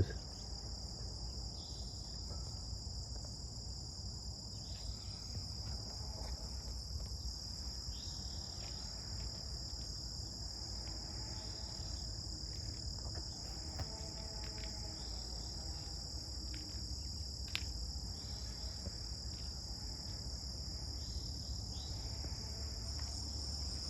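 Steady chorus of crickets trilling, an even high-pitched drone that doesn't let up, over a faint low rumble. A single small click about seventeen seconds in.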